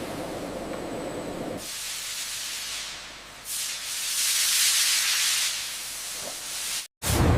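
Steady hissing like steam or air venting, at first with a lower rushing underneath, swelling louder about three and a half seconds in and easing off. It cuts off abruptly near the end, and a lower rumbling noise starts.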